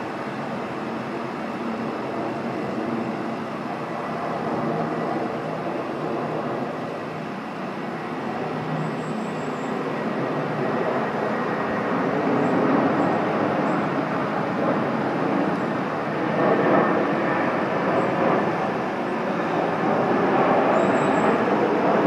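Aircraft engines running as a steady rush that slowly grows louder, with a faint steady whine above it.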